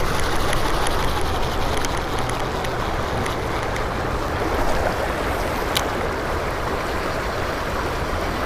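Fast river current rushing over shallow riffles, a steady even rush of water, with a single sharp click about six seconds in.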